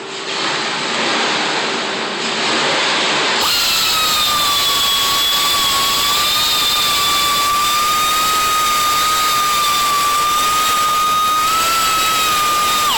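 Handheld power tool starting about three seconds in, after a rough hiss, and running steadily with a high whine, the kind used to sand and polish a headlight lens.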